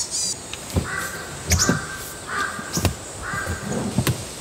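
A crow cawing four times at an even pace, each call about half a second long, with a few sharp knocks from the van's seats and mats being handled.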